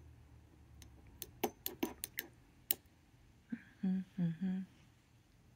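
A quick run of about eight light clicks and taps, then three short hummed notes in a woman's voice.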